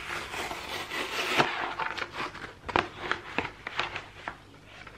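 Kraft cardboard mailer envelope being torn open by hand: a ripping of paper for about the first second and a half, then scattered crackles and taps as the torn flap is pulled back.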